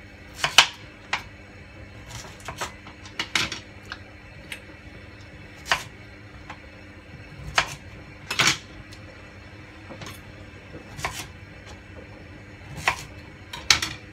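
Kitchen knife cutting sweet potato on a wooden cutting board: about a dozen sharp knocks at uneven intervals, over a faint steady hum.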